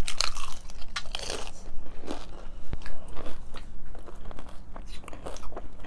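Crunchy hard-shell tacos being bitten and chewed: a run of sharp, irregular crunches.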